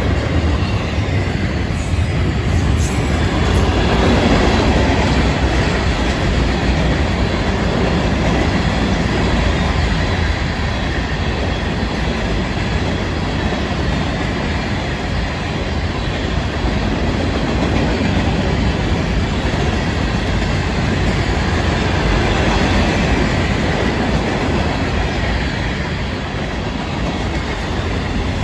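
Long Florida East Coast Railway freight train rolling past at steady speed: a continuous rumble with the clatter of the cars' wheels over the rails.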